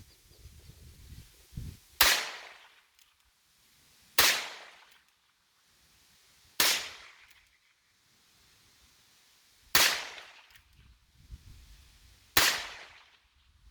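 Five shots from a Heritage Rough Rider single-action revolver, fired two to three seconds apart. Each is a sharp crack that trails off briefly.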